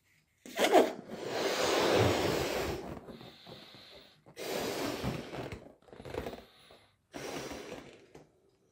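A person blowing up a rubber balloon by mouth: a long hard blow about a second in, the loudest, then three shorter blows with short pauses for breath between them.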